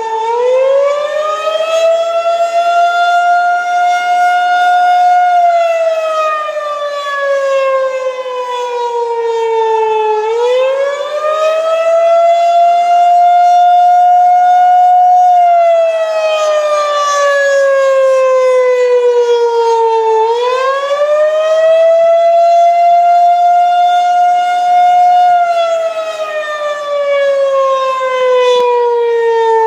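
Federal Signal outdoor tornado warning siren sounding a steady wail in a scheduled test. Its pitch climbs over about two seconds, holds for about three, then slides slowly back down, repeating roughly every ten seconds, three times here. The loudness swells and dips as it goes.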